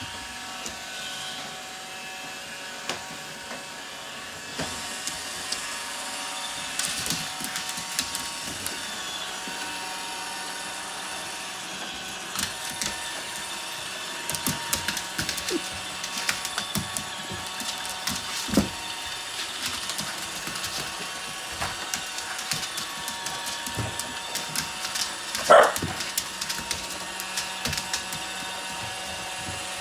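Roomba robot vacuum running with a steady motor hum, with scattered clicks and knocks throughout. A single short, loud, high-pitched squeal rises in pitch about three-quarters of the way through.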